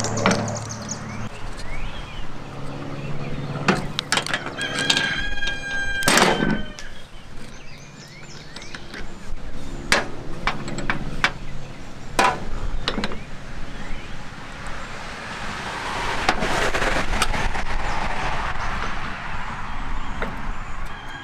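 Metal clinks and taps of steel hydraulic hose fittings and wrenches being handled and screwed together on a tractor's sheet-metal hood: scattered sharp knocks, the loudest around six, ten and twelve seconds in. A bird calls once about four to six seconds in, and a stretch of rustling comes near the end.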